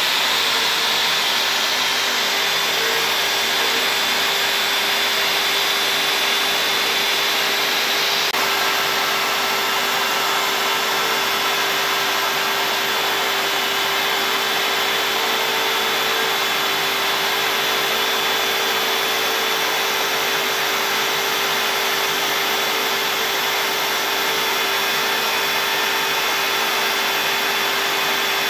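CNC router spindle running steadily as its bit carves into MDF board, a continuous rushing noise with a steady whine over it. The sound shifts abruptly about eight seconds in.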